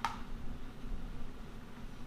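Faint rubbing and handling noise from polishing an aluminum part by hand with metal polish, with one sharp click at the start.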